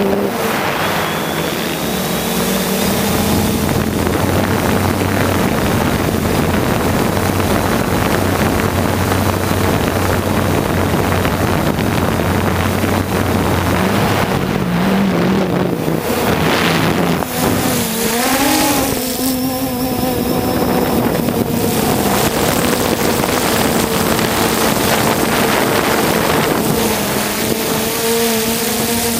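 3DR Solo quadcopter's electric motors and propellers running steadily, heard up close from its onboard camera. The pitch wavers up and down a little past halfway, then settles again.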